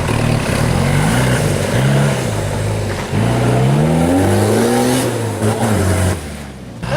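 Toyota 15B four-cylinder diesel engine revving, its pitch climbing and falling several times. The engine note drops away about six seconds in.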